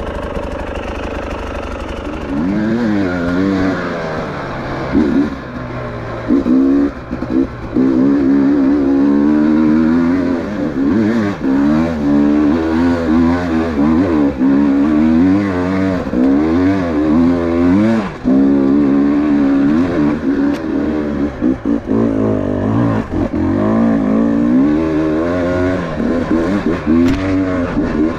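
Enduro dirt bike engine with the throttle worked on and off constantly, its revs rising and falling again and again while riding a rough dirt trail. It runs lower and steadier for the first couple of seconds.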